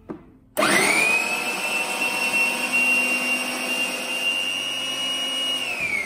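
Preethi Zodiac mixer grinder motor driving a food processor bowl to chop onions: a click, then the whine rises quickly to a steady high pitch as the blades spin up. Near the end it is switched off and the whine falls as the motor winds down.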